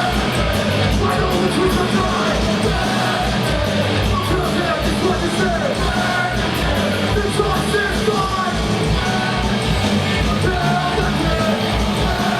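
Punk rock band playing live: fast, driving drums and distorted guitars with shouted vocals.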